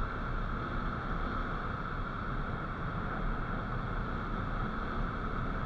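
Steady riding noise of a motorcycle moving along a road: wind on the microphone mixed with engine and tyre noise, even throughout.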